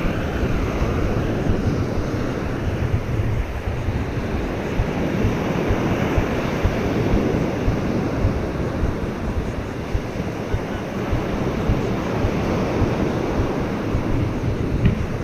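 Ocean surf washing onto a beach, with wind blowing across the microphone.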